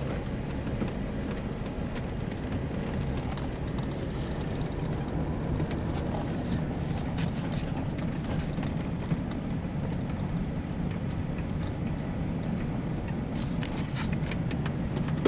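Chevy's engine running and road noise heard from inside the cab while driving, a steady low rumble with a few light clicks and rattles.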